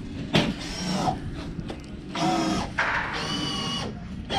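Power drill running in three short bursts of under a second each, with sharp knocks about half a second in and at the end.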